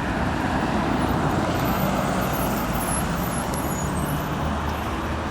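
Steady city road traffic: cars passing with a continuous rumble of engines and tyres.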